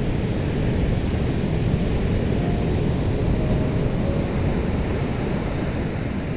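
Ocean surf ambience: a steady, full rumble of waves washing in, with no single distinct crash.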